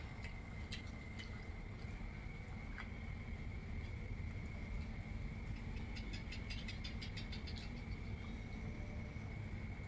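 Quiet outdoor evening ambience: a steady high-pitched insect drone over a low rumble, with a quick rattling trill of clicks about six seconds in.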